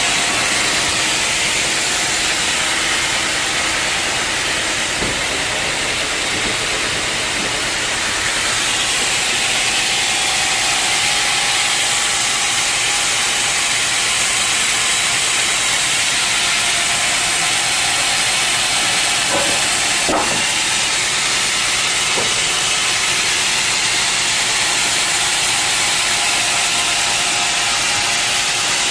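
Sawmill saw blade cutting through an old, dense teak log: a loud, steady hissing rasp of the blade in the wood, with a few faint knocks about two-thirds of the way in.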